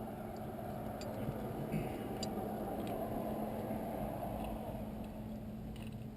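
Scattered faint clicks and small knocks, about five in all, over a steady low hum and background noise.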